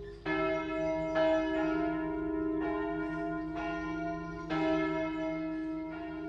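Church bells ringing, a new stroke about every second, each one ringing on into the next.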